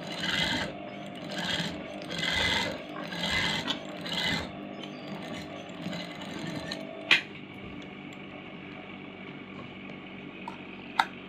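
Sewing machine stitching a fabric edge in a series of short runs, about one a second, over a steady hum. After these stop, a single sharp click about seven seconds in, then a quieter hum and another click near the end.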